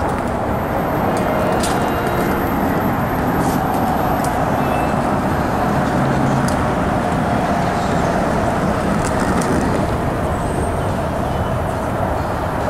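Commuter train approaching a station platform: a steady rumble of the train running on the rails.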